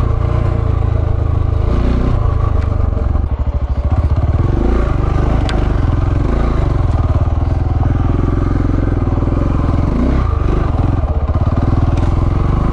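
KTM 690's single-cylinder engine running as the bike is ridden along a dirt single-track trail, the throttle rolling off and on, with a brief dip in engine level about three and a half seconds in.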